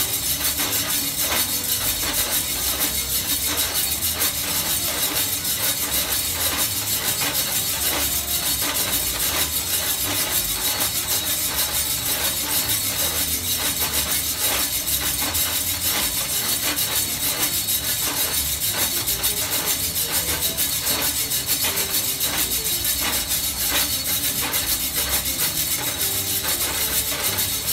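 Coffee beans tumbling in a homemade rotating stainless-steel drum roaster, a steady rushing hiss dotted with many small irregular clicks and rattles.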